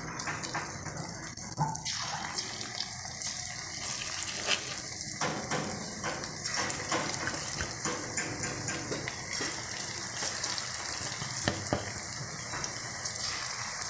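Cabbage and gram-flour pakoras deep-frying in hot oil in an aluminium kadai, with steady sizzling and fine crackling as more batter is dropped in.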